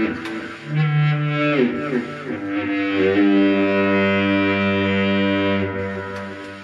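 Synthesizer played through a Stomp Box Fuzz pedal, giving thick, fuzz-distorted sustained notes. About a second and a half in the notes slide downward, then a long low note is held.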